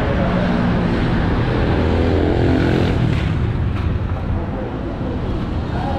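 Road traffic passing close by: motor vehicle engines, one rising in pitch around the middle as it speeds up.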